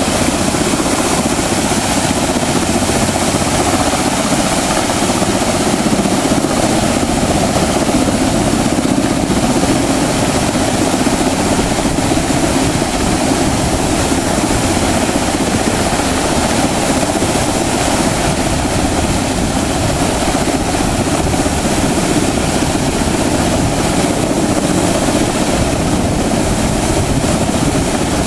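Helicopter rotor and engine running steadily as it hovers with a heavy sign letter slung below it on a long line.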